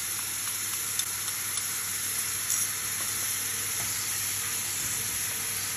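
Sauce sizzling in a hot frying pan of oil and garlic as it comes to the boil, an even hiss with a few faint clicks.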